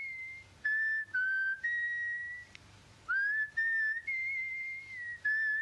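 A person whistling a slow tune of held notes, each phrase sliding up into its first note; the same short phrase is repeated about halfway through.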